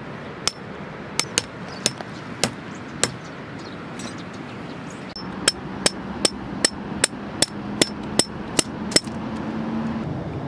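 Hammer driving metal tent pegs into stony ground: sharp, ringing metal-on-metal clinks, a few scattered strikes at first, then after a short break a steady run of about ten blows, two to three a second.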